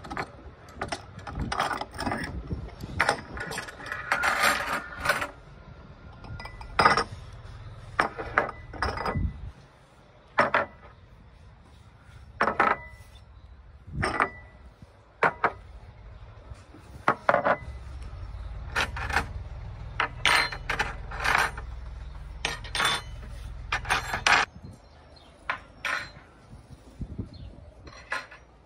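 Glass bowls and drinking glasses set down one by one on a wooden tabletop: a string of separate knocks and clinks, some with a short glassy ring.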